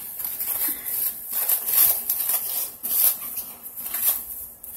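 Plastic cling film (saran wrap) crinkling and rustling in uneven bursts as it is peeled and pulled off a wrapped package by hand.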